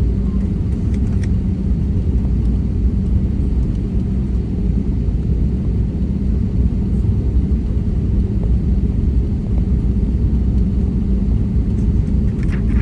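Airbus A320neo airliner running with a steady low rumble, with a faint hum of steady tones in it.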